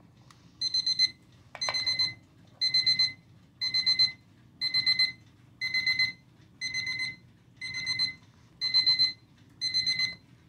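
Cardinal Quartz travel alarm clock's electronic alarm beeping: bursts of quick, high-pitched beeps, about one burst a second, ten times over, stopping near the end.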